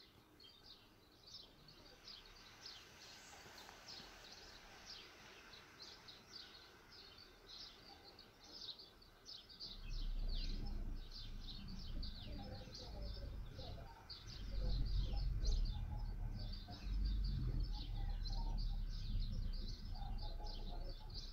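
Small birds chirping continuously, many short quick calls overlapping. About halfway through, a low rumble comes in and carries on, rising and falling.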